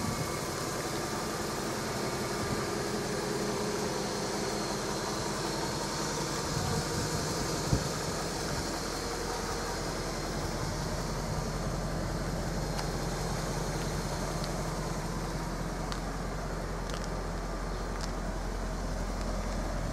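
1997 Jaguar XK8's 4.0-litre V8 idling steadily.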